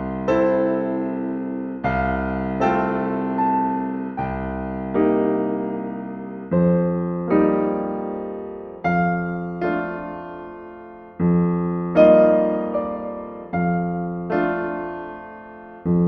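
Slow, gentle solo piano music: soft chords and notes struck every second or two, each left to ring and fade before the next.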